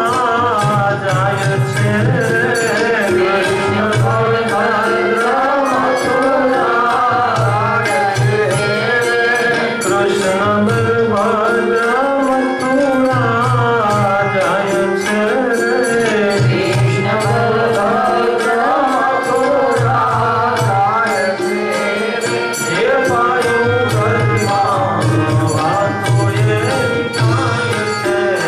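A man singing a devotional song, with a steady hand-drum rhythm and melodic instrumental accompaniment.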